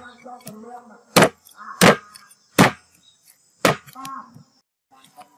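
Cleaver chopping raw chicken on a thick round wooden chopping board: four sharp chops, spaced well under a second apart at first, then a slightly longer gap before the last.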